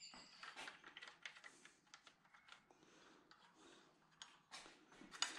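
Near silence with faint, scattered light metal clicks: the timing chain of a BMW N52 engine being handled.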